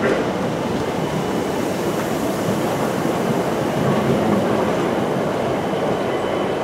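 SouthEastern Class 375 Electrostar electric multiple unit rolling slowly along the platform as it pulls in to stop. It makes a steady rumble of wheels on rail.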